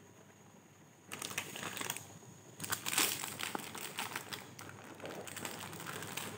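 Plastic snack-cake wrapper crinkling as it is picked up and handled in the hands, starting about a second in and loudest around the middle.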